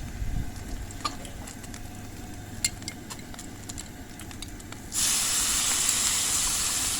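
Mushrooms dropped into hot fat in a cast iron skillet, sizzling loudly and steadily from the moment they hit the pan about five seconds in. Before that, a few light clicks over a low steady rumble.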